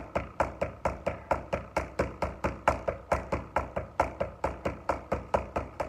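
Boxing gloves striking leather focus mitts in a fast, even flurry of punches, about five sharp smacks a second.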